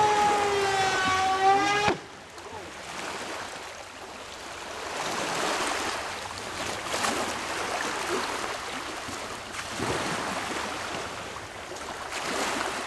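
Icon A5 RC plane's electric motor and propeller whining, the pitch sagging slightly, then cutting off abruptly about two seconds in. After that only a steady rush of wind and water remains.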